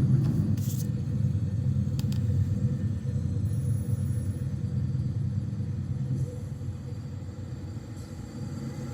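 Maintenance-of-way equipment train rumbling past as it leaves the yard, with a few sharp clicks early on. The rumble grows quieter after about six seconds as the train moves away.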